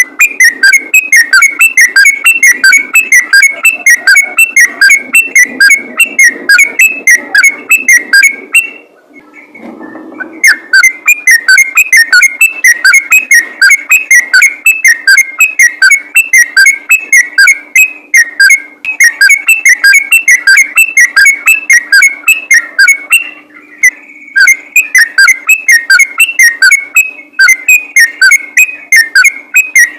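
Yellow-vented bulbul singing a fast, continuous chattering song of rapidly repeated whistled notes. It is loud and clipped, and breaks off for about a second and a half some nine seconds in.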